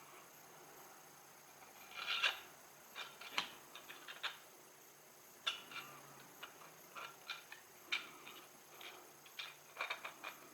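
Irregular light clicks and taps with a few short rustles, the sound of small hard parts being handled and fitted together, loudest about two seconds in.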